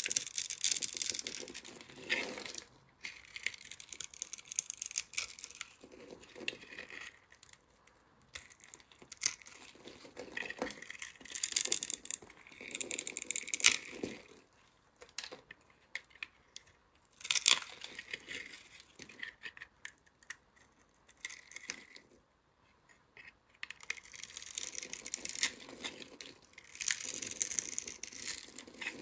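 Crisp crunching and crackling of bar soap scored into tiny cubes as a snap-off utility knife blade slices the cubes off. It comes in short bursts with pauses between them and a couple of sharper clicks in the middle.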